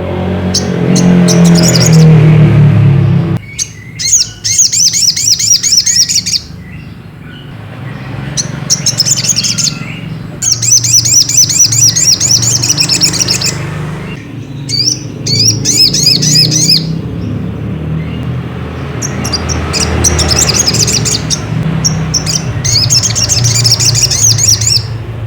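Crimson sunbird (sogok ontong) singing: bouts of fast, high twittering trills a few seconds long, repeated with short gaps between them. A steady low hum runs underneath.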